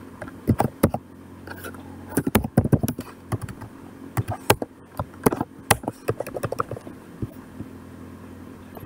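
Typing on a computer keyboard: a run of irregular keystrokes that thins out and stops near the end.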